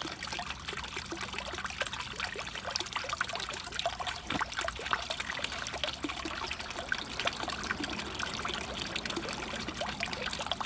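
Water trickling and splashing steadily from a filter's return into the fish water, a constant patter of small splashes.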